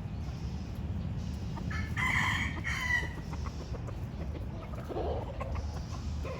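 A rooster crows once, about two seconds in, a call lasting about a second; a shorter, lower call follows about five seconds in, over a steady low background rumble.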